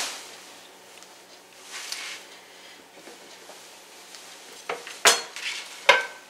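A ceramic plate and a utensil clinking as they are set down on a granite countertop: mostly soft handling, then three or four sharp clinks in the last second and a half, the last one ringing briefly.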